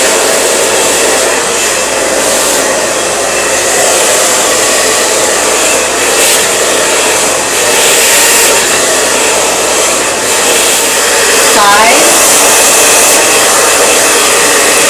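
Handheld blow dryer running steadily on hair, its airflow rising and falling slightly in level as it is moved along the hair.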